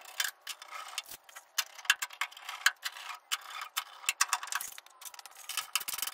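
Hand screwdriver driving small screws into an aluminium inspection cover plate on an aircraft's aluminium wing skin: a string of irregular light metallic clicks and scrapes.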